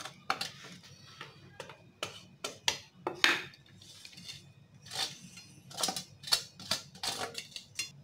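A wooden spatula scrapes and knocks against a metal steamer pot and a ceramic plate as steamed vermicelli is turned out. It makes a run of irregular clicks and knocks, the loudest about three seconds in.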